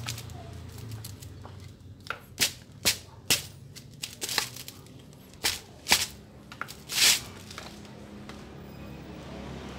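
Handling of a pressure-washer plunger pump's brass manifold head as it is fitted onto the pump body: about ten sharp clicks and knocks of metal parts, one slightly longer about seven seconds in.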